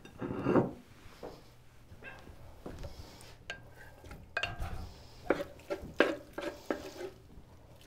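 Wooden spoon scraping sausage pieces off a plate into a large pot of frying meat and stirring them in: irregular scrapes and knocks of spoon on plate and pot.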